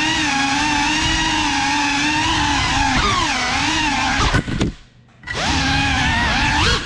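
GEPRC CineLog35 cinewhoop quadcopter's brushless motors and ducted propellers whining, the pitch sliding up and down with the throttle. About four and a half seconds in, the throttle is cut and the whine drops away for about half a second, then spools back up.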